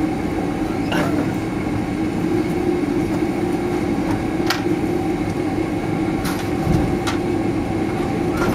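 Cabin noise of a Boeing 767-300ER taxiing: a steady hum and rumble from the idling engines and the rolling aircraft, with about four short knocks spread through it.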